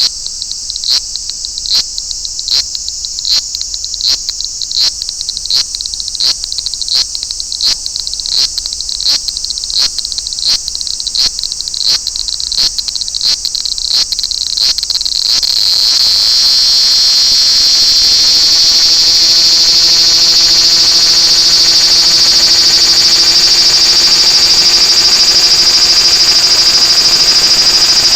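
Large brown cicada (abura-zemi) singing: a high sizzling hiss broken by regular sharp pulses about one and a half times a second, which about halfway through runs together into one continuous, louder sizzling drone.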